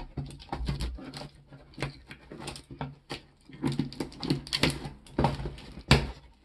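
Scissors cutting through packing tape on a cardboard shipping box, with irregular snips, scrapes and knocks as the blades work along the seam and the cardboard flaps are pulled open.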